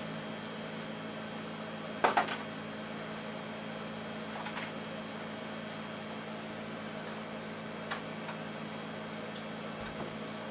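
A steady low hum, with faint handling sounds as two layers of fabric are pinned together. The loudest of these is a sharp click about two seconds in.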